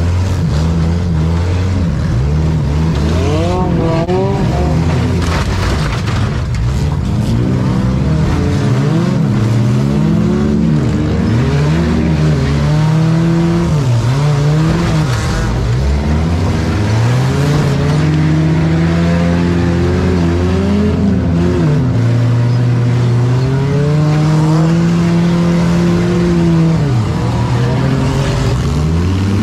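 Compact demolition derby car's engine revving up and falling back again and again as it accelerates and backs off, with a few sharp bangs of impacts in the first half.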